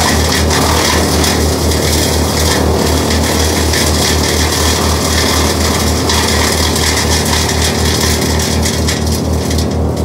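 Forst XR8 tracked wood chipper running at full speed and chewing through orchard prunings: a steady engine hum under a dense shredding hiss of wood being chipped, which thins a little near the end.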